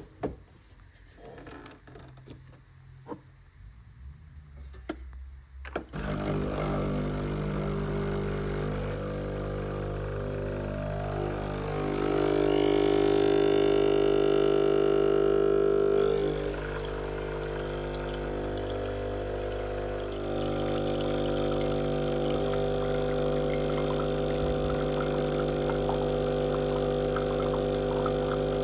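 A few clicks, then about six seconds in a Sage espresso machine's pump starts and runs with a steady hum, louder for a few seconds in the middle, as a shot is pulled.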